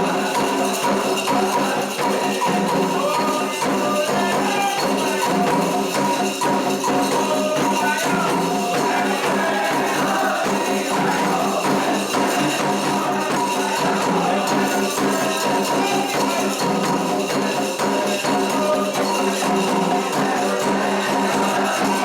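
Candomblé ritual music: dense, fast percussion with jingling and rattling, over steady ringing tones and a wavering melody.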